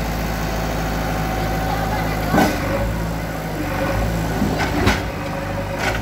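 JCB 3DX backhoe loader's diesel engine running steadily while working. Sharp crashes of brick masonry break over it: the loudest about two and a half seconds in, and two more near the end.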